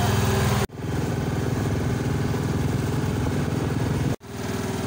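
Motorised outrigger boat's engine running steadily, with two abrupt split-second dropouts, about a second in and near the end.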